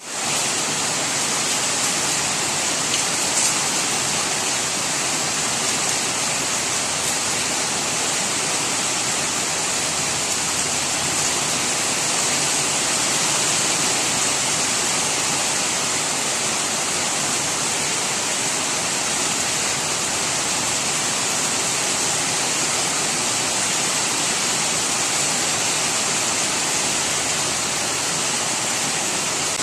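Rain falling steadily: a dense, even hiss that does not rise or fall.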